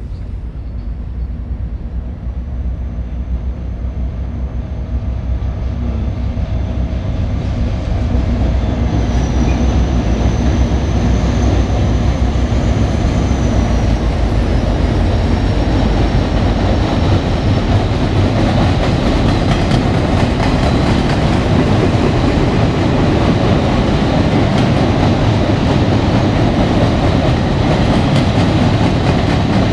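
Freight train led by two diesel locomotives coming on and crossing a railroad bridge. The rumble of engines and wheels grows louder over the first several seconds, then holds as a steady rumble and clatter of the passing cars. A thin high squeal sounds over the first half and drops slightly in pitch before fading.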